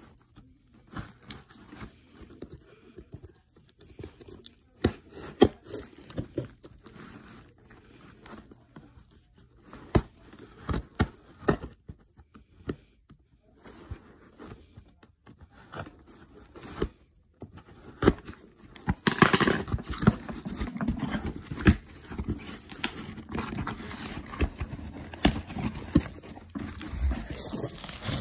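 Cardboard shipping box being opened by hand: scattered scrapes and taps, then, about two-thirds of the way through, a denser stretch of rustling and crinkling of packaging as the box's contents are handled.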